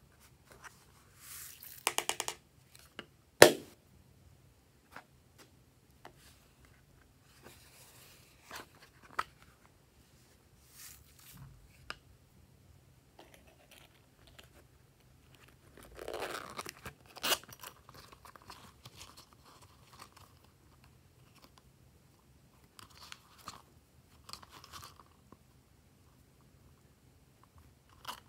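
Intermittent clicks, taps and rustles of hands handling small plastic cases and loose sequin confetti. There is a quick run of rattling clicks about two seconds in, a sharp plastic click a second or so later, and a longer stretch of rustling handling near the middle.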